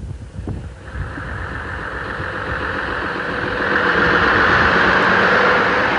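AEC RT double-decker bus's diesel engine running as the bus passes close by, growing louder to a peak in the second half.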